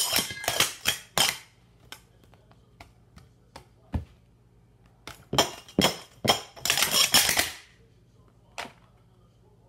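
Metal sport-stacking cups (Speed Stacks Super Stacks) clanking against each other and on the mat as they are stacked up and brought down. A burst of rapid metallic clatter comes in the first second and a half, then a lull with a few light taps and a dull knock about four seconds in. A louder rapid clatter follows from about five to seven and a half seconds, and one last clank comes near the end.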